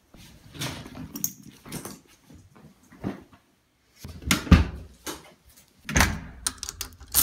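A door being opened and shut by its lever handle: a run of latch clicks and knocks, with the heaviest thuds about four and a half seconds in and again about six seconds in.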